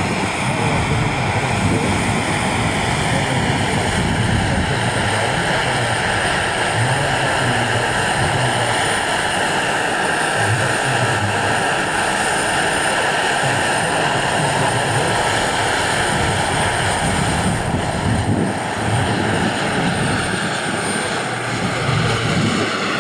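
Turbine-powered scale RC model of a Mi-24 helicopter flying: the steady high whine of its Pal Taurus 12 kW gas turbine over the rumble of its rotor, the whine shifting slightly in pitch now and then.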